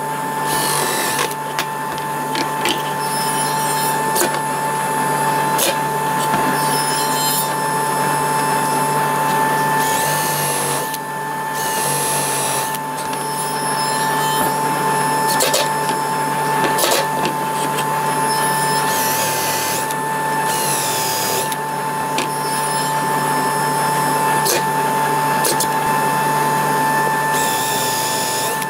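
Bosch GSR 1440-Li cordless drill-driver and DeWalt DCF887 impact driver running in short bursts, drilling holes and driving screws into plywood, over a steady hum.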